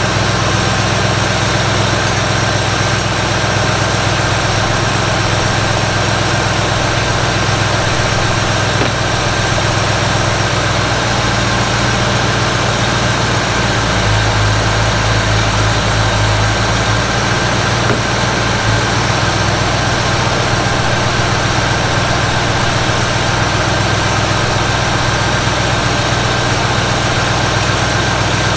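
Ford 302 V8 idling steadily while the carburetor's idle mixture is being readjusted after timing. The idle note shifts and deepens from about 11 seconds in to about 19 seconds in, then settles again.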